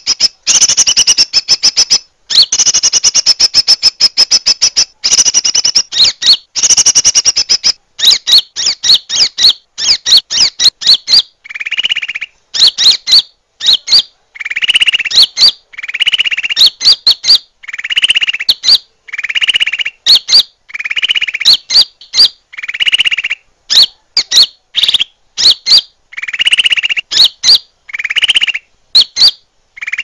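Bird-trapping lure call: loud, rapid high trills for the first several seconds, then repeated bursts of quick high chirps alternating with harsher buzzy calls every second or two.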